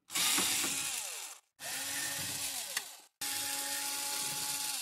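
Ryobi cordless screwdriver whirring in three short bursts as it backs screws out of a steel computer case. The first burst drops in pitch and the last holds a steady pitch.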